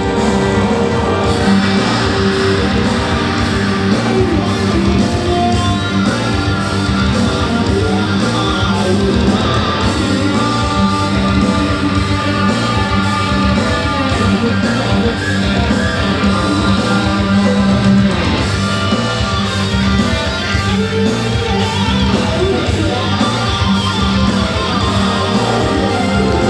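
Rock music with electric guitar strumming over a steady beat.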